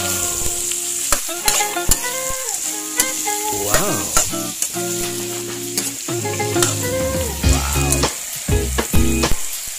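Raw chicken feet and heads being handled in a stainless-steel basin: wet squelching and many small clicks and knocks against the metal, over background music with changing pitched notes.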